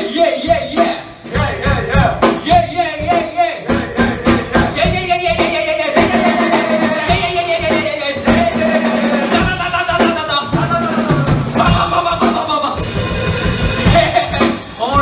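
Live rock band playing a song: a man singing into a microphone over drum kit, electric guitar, bass guitar and a Nord Electro keyboard, with a steady drum beat.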